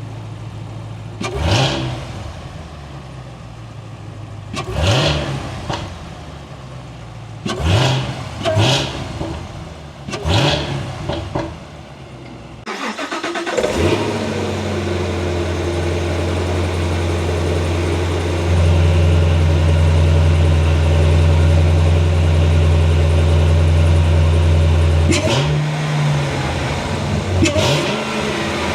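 Supercharged 6.2-litre V8 of a Cadillac CT5-V Blackwing, blipped from idle five times with quick rises and falls in pitch. After an abrupt cut, a second take follows: the engine idles, is held at a steady higher rpm for several seconds, drops back and is blipped twice more. These are before-and-after takes of the stock intake and a K&N cold air intake.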